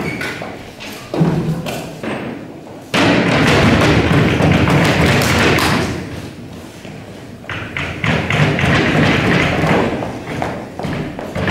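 Heavy, close-packed thudding of boots stamping on a stage floor, in two long stretches a few seconds each.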